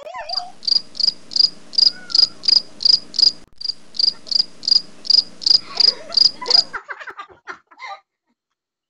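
Cricket chirping sound effect: a steady run of high chirps, about three a second, that cuts off abruptly near the end. It is the stock crickets gag for an awkward silence.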